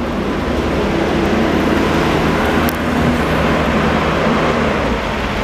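Traffic on a rain-wet street: tyre noise on wet pavement, with a heavy dump truck's diesel engine running close by, a steady low drone.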